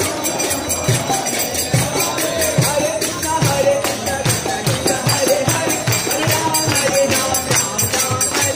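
Devotional kirtan chanting by a group of singers, with hand cymbals ringing and a drum keeping a steady beat.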